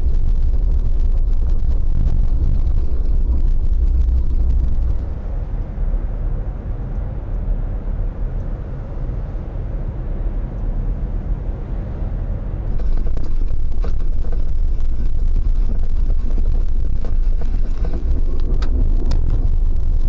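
Vehicle driving on a rough dirt track, heard from inside the cab: a steady low rumble of engine and tyres, softer for a stretch in the middle. Scattered clicks and rattles come in after the midpoint.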